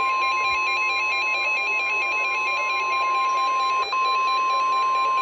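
NOAA Weather Radio warning alarm tone: a single steady 1050 Hz tone announcing a warning, with a brief dropout near four seconds in. A faster warble, alternating rapidly between two higher pitches, sounds along with it.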